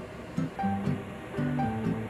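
Background music: a rhythmic tune of short, repeated bass and melody notes.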